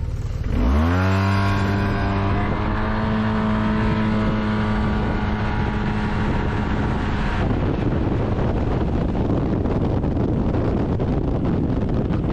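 Yamaha T-Max 530 scooter's parallel-twin engine at full throttle from a standstill. The revs shoot up about half a second in and then hold at one steady pitch while the Malossi over-range CVT variator lets the speed climb. The engine note cuts off suddenly about seven and a half seconds in, leaving wind rush on the microphone.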